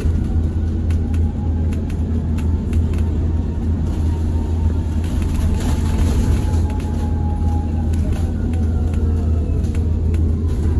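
Inside the cabin of a BYD ADL Enviro200EV electric bus on the move: a steady low road rumble with a faint electric motor whine that slowly rises and then falls in pitch as the bus speeds up and eases off, and small rattles from the body.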